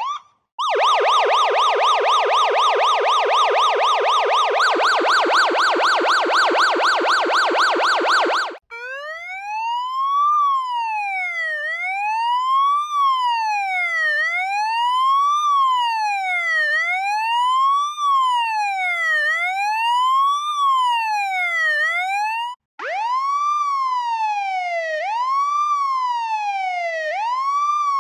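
Police siren sound effects in three patterns, one after another: a fast warbling yelp that shifts slightly higher in pitch about halfway through, then from about 9 s a slow wail rising and falling about every two and a half seconds, then from about 23 s a siren that sweeps up quickly and falls away slowly, repeating about every two seconds.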